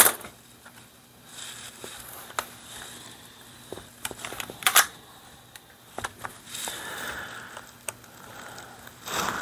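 Workbench handling noise: sharp clicks and light knocks of a pump-action .22 rifle and a screwdriver being picked up and set down on a rubber bench mat, with soft rustling between. The loudest clicks come right at the start and about halfway through.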